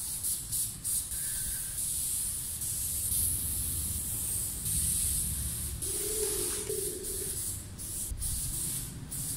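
Aerosol spray paint can spraying in long hissing passes, cut by several brief pauses where the nozzle is released, as graffiti outline and shadow lines are painted onto a concrete wall.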